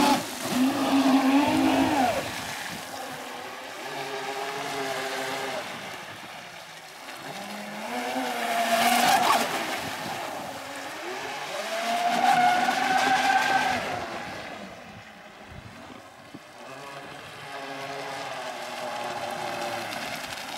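Twin TP Power 4050 3250Kv brushless electric motors of an RC racing catamaran whining at high speed, with the hiss of spray from the hull. The whine bends up and down in pitch and swells loudest three times as the boat runs close past.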